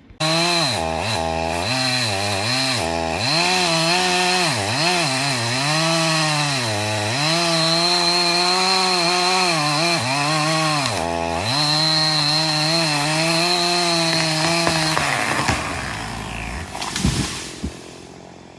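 Chainsaw running at high revs, its pitch dipping and recovering several times, then winding down about three-quarters of the way through.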